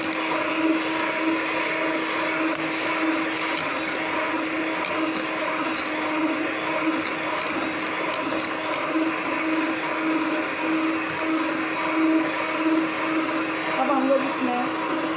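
Electric hand mixer running steadily, its beaters whisking raw eggs in a steel bowl.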